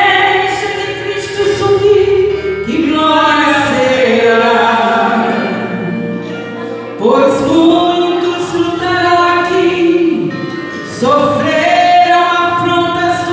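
A woman singing a gospel hymn over musical accompaniment, in long held phrases, with new phrases beginning about three, seven and eleven seconds in.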